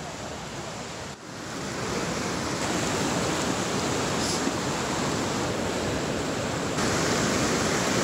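A swollen, fast-flowing mountain river rushing over boulders: a steady noise of fast water that grows louder after a brief dip about a second in.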